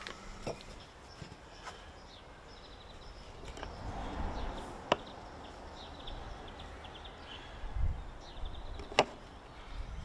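Quiet garden ambience with faint birdsong chirping and a low wind rumble, under soft handling of a proved loaf being turned out onto a wooden bread peel and scored with a knife. Two sharp taps stand out, about five seconds in and near the end.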